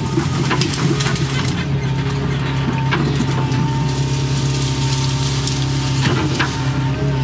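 Doosan excavator's diesel engine running steadily while the machine tears out brush and small trees: irregular cracking and snapping of branches and woody scrub over the engine.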